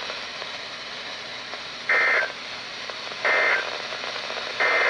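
Three short, warbling digital data bursts of an EAS (SAME) end-of-message code on NOAA Weather Radio, about 1.3 s apart, over steady radio hiss. They mark the end of the severe thunderstorm warning broadcast.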